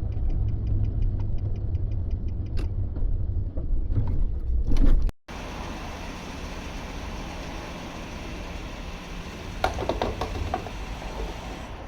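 Car driving, with a loud low road and engine rumble inside the cabin and a fast, even ticking for the first couple of seconds. After about five seconds it cuts off sharply to a quieter steady background with a few knocks near the end.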